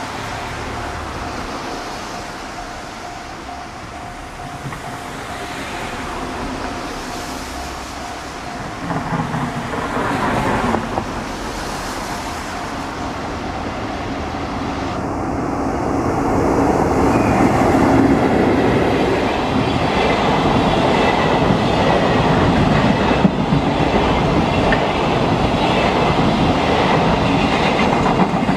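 Freight train hauled by an EF65 electric locomotive passing a level crossing, with long-rail flat wagons in tow. A steady warning tone sounds in the first several seconds. The train's noise swells about ten seconds in, then settles into a loud, continuous rolling with clickety-clack of wheels over rail joints as the wagons run past.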